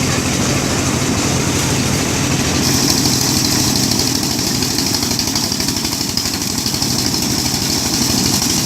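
Rice paddy blower (winnowing machine) running steadily on its small engine, with a hiss of rushing air over the engine's pulse. The hiss gets louder about three seconds in.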